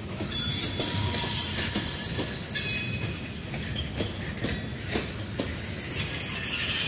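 CSX freight train's steel-wheeled hopper cars rolling past close by: a steady rumble with wheels clacking over rail joints, and a high-pitched squeal that comes and goes several times.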